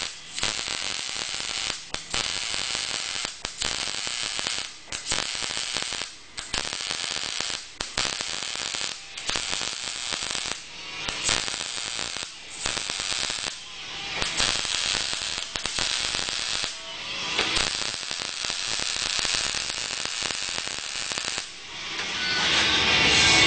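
Electric arc welding on a steel frame: a steady crackling hiss from the arc, laid down in runs of about a second and a half, each broken by a brief pause.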